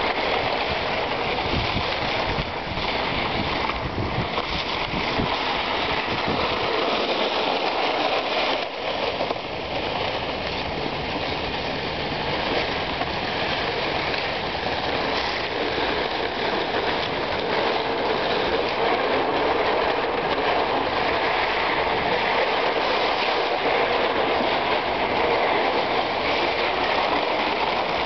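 Steady scraping hiss of ice skate blades and a sled sliding over rink ice, with wind buffeting the microphone as an uneven low rumble during roughly the first seven seconds.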